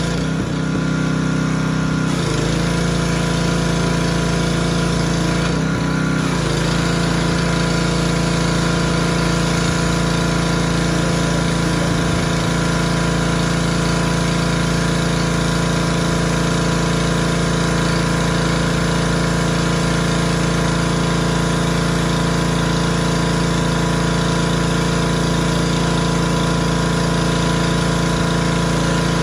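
A Craftsman gas pressure washer's small engine and pump run steadily under load while the wand sprays water onto concrete, the spray adding a hiss. The engine note changes briefly near the start and again about six seconds in.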